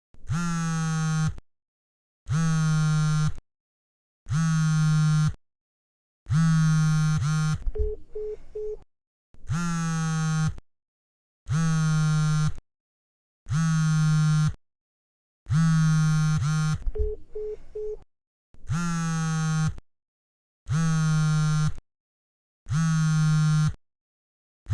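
Mobile phone on vibrate buzzing in repeated pulses, each a steady hum of about a second, with roughly one every two seconds. A few buzzes end in a short rattle.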